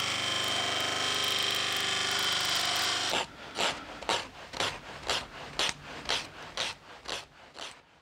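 A disc sander runs steadily with a small wooden bird blank held against its disc, a loud grinding hiss with a high tone in it, and cuts off about three seconds in. Then a sanding sponge rubs back and forth on the small wooden bird by hand, about three strokes a second.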